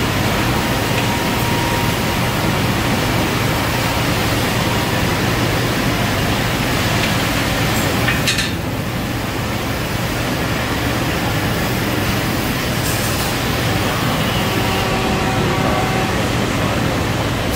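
Steady loud workshop machinery noise with a constant low hum. About eight seconds in, one sharp ringing hammer strike lands on a red-hot leaf spring being bent to its arc on a press.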